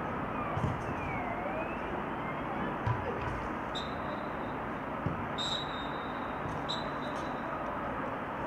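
Open-air football pitch ambience: a steady background hiss with faint, distant shouts from players and three dull thumps of the ball being kicked.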